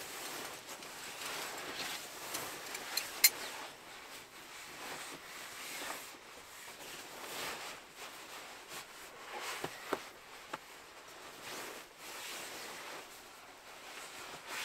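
Nylon rustling of a down sleeping bag and clothing as a person dresses on a sleeping pad, pulling on trousers and down booties. There is a sharp click about three seconds in and a few smaller knocks near ten seconds.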